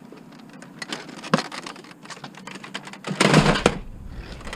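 Light clicks and knocks of scrap items being handled and shifted around, with one sharper knock and then a louder rustling clatter about three seconds in that lasts about half a second.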